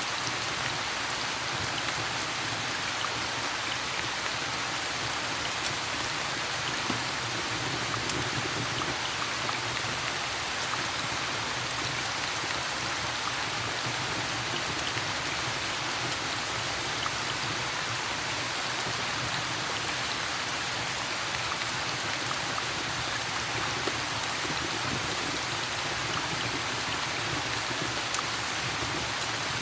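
Steady rain falling, an even hiss of drops with faint scattered ticks and no clear thunder.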